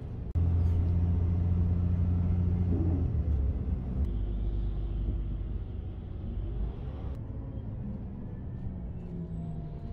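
Coach bus engine drone and road rumble heard from inside the passenger cabin, steady and low. The sound jumps abruptly about a third of a second in, around four seconds and around seven seconds, where short clips are joined.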